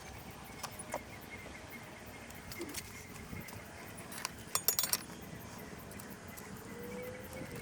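Light metallic clicks and clinks of hand tools and handlebar hardware, scattered, with a quick cluster of clinks about four and a half seconds in.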